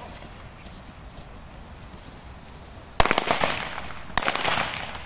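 Two sharp cracks a little over a second apart, each trailing off in a brief rattle, struck during a mondioring protection exercise with the decoy working the dog.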